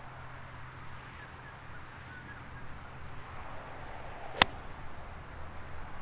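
A single sharp click of a golf club striking a ball, about four and a half seconds in, over faint outdoor background.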